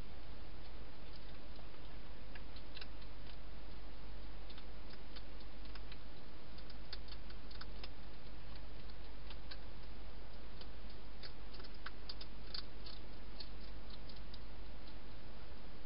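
Wild hedgehog eating dry food inside a plastic feeding box: irregular quick crunching clicks, busier in the second half, over a steady hiss.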